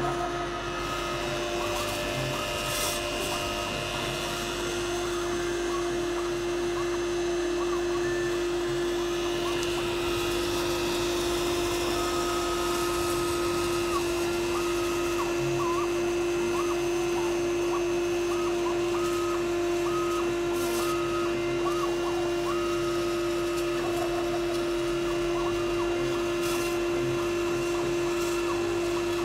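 Homemade CNC router milling foam: the spindle runs with a steady hum at one pitch while the 2 mm end mill cuts. Over it, the NEMA 23 stepper motors whine in tones that jump up and down in pitch as the axes move and change direction.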